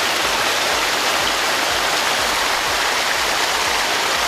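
Steady rush of water flowing in a small irrigation ditch.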